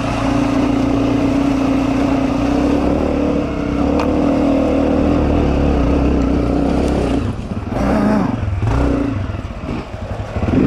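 Dirt bike engine running under way at a steady pitch, then the revs rise and fall unevenly several times from about seven seconds in as the throttle is worked, with a brief drop in revs near the end.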